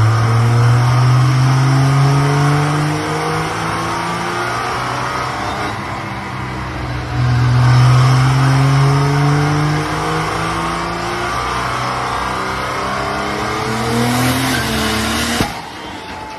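Diesel pickup engine at full throttle on a chassis dynamometer, its pitch climbing slowly through long pulls. A loud hissing rush builds near the end, then a short bang, and the engine sound cuts off suddenly as the engine blows apart.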